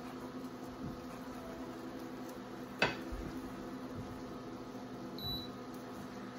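A short electronic beep from a portable induction cooktop's touch controls a little after five seconds in, over a steady hum. A single sharp knock about three seconds in is the loudest sound.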